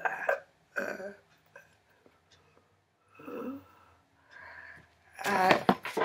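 A woman's voice making short breathy exclamations in several separate bursts, the loudest and longest near the end.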